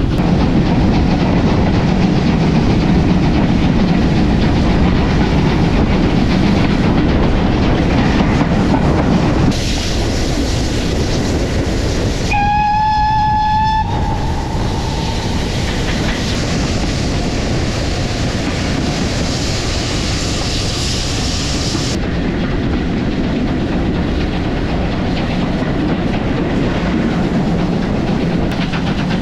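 Steam train running, heard from a camera on the locomotive: a steady rumble and clatter of wheels on the rails. About twelve seconds in, the locomotive's steam whistle blows once for about a second and a half.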